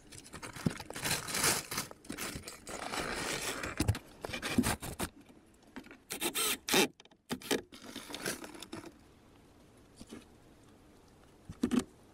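Scraping and rustling as logs and tarp sheeting are handled, in irregular bursts that die down to occasional short noises over the last few seconds.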